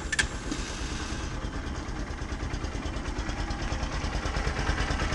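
Bajaj Pulsar NS160's single-cylinder engine just started and idling steadily with a fast, even beat. The owner is unsure whether this engine noise is normal.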